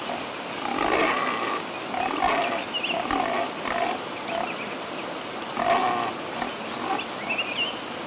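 Pig grunting and oinking in a string of short, rough calls, roughly one a second, with faint high chirps in the background.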